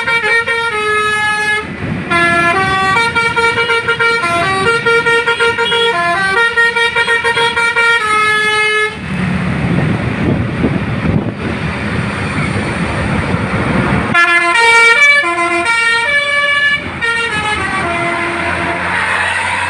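Basuri 'telolet' multi-tone bus horn playing a melody of stepping notes. About nine seconds in, the tune gives way to several seconds of loud rushing noise, and then the horn melody resumes.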